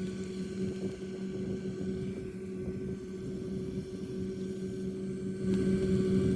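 Rice combine harvester running with a steady, even drone that gets louder about five and a half seconds in.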